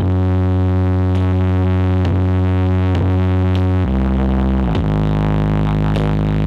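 Loud electronic music with heavy held bass notes and synth chords. The bass slides down in pitch about four seconds in and rises again near the end.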